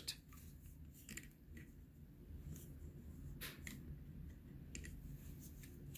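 A handful of faint, scattered clicks and rustles from pliers padded with a soft rag working the metal sarute ring on a sword's pommel, gloved hands handling the tool.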